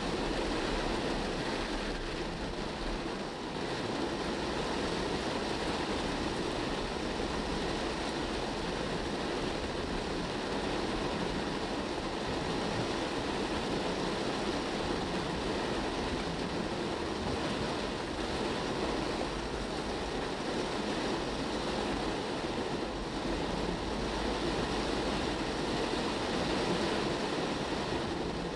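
Heavy rain on a car's windscreen and roof, heard from inside the cabin as a steady rushing hiss, mixed with tyre noise on the wet road.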